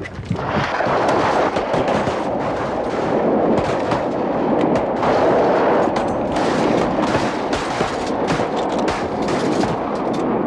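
Rapid, overlapping volley of shotgun fire from several hunters, among them a 10-gauge, with shots going off many times a second, over a continuous rush of noise from a large flock of ducks flushing off the water.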